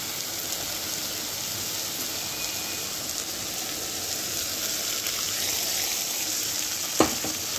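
Masala and fried stuffed brinjals sizzling steadily in mustard oil in an iron kadhai; the masala has been cooked until the oil separates. One sharp click sounds near the end.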